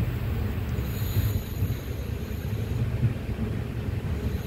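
Express train coach rolling slowly, heard from on board: a steady low rumble with some wind on the microphone, and a faint high-pitched whine from about one to three seconds in.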